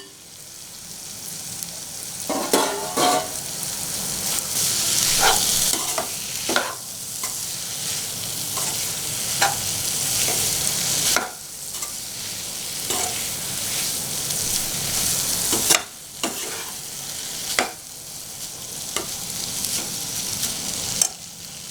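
Goat intestine pieces sizzling in oil and spice masala in a kadai, stirred with a spatula that scrapes and knocks against the pan every second or two over a steady frying hiss.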